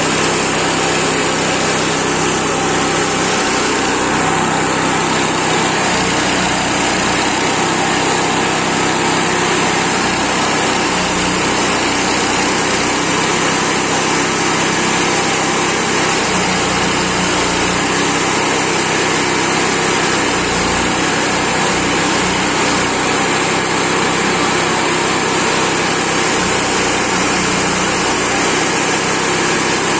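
Petrol-engined chipper shredder running steadily at full speed while leafy tea branches are fed into its hopper and chopped.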